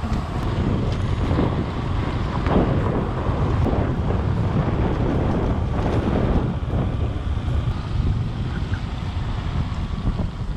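Motorcycle riding along a rough gravel road, its engine running steadily under heavy wind buffeting on the microphone.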